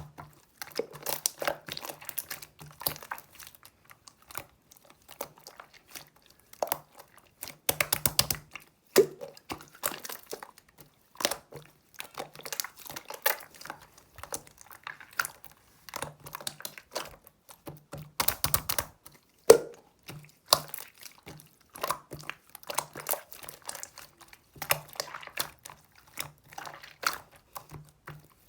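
Irregular bursts of crinkling and crackling with sharp clicks, like thin plastic or paper being handled and crumpled, every second or so, with louder crinkles about eight seconds in and again near nineteen seconds.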